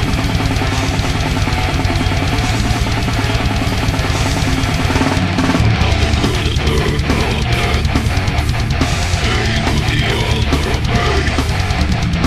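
Death metal song playing: electric guitars, bass and a drum kit, the drums struck in a fast, dense rhythm.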